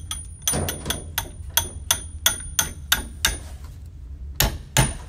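A hammer tapping a steel bolt through a wooden gate post: about ten light, quick blows, a short pause, then harder strikes near the end. Each blow has a high metallic ring.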